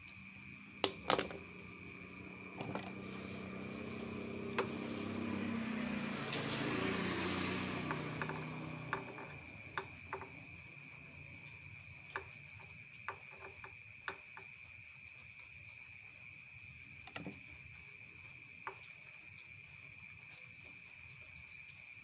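Clicks and taps of small plastic parts of a washing machine's door-switch assembly being handled, the loudest about a second in, over a steady cricket trill. A passing vehicle swells and fades between about 3 and 9 seconds in.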